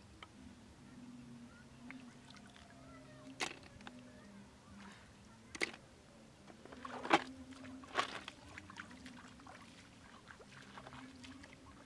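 Water splashing and sloshing as feet wade through shallow water: several short, sharp splashes, the loudest about seven seconds in, over a faint steady low hum.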